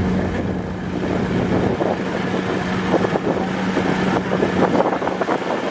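A boat's engine running with a steady low hum that fades out near the end, with wind buffeting the microphone and a crackly rush of water.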